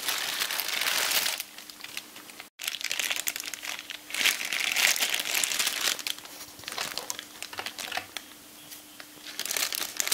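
Thin clear plastic bags crinkling as they are picked up and handled, in several bursts with short pauses between them.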